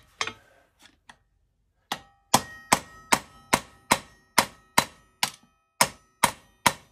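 Hammer striking a steel punch held against an angle grinder's stuck disc to knock it loose: a few light taps, then about a dozen evenly paced blows, roughly two and a half a second, each with a short metallic ring.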